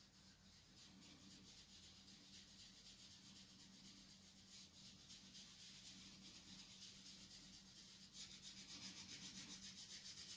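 Faint rhythmic rubbing of a cotton dental roll, dampened with painting oil, blending oil pastel across smooth heavy drawing paper. The strokes get quicker and more even near the end, about five a second.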